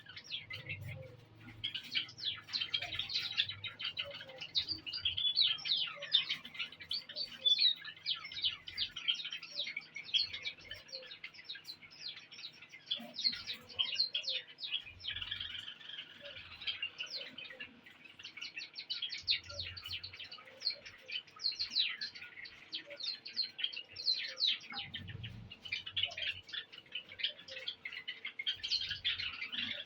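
A flock of Java sparrows chirping continuously, many short rapid notes overlapping into a steady chatter.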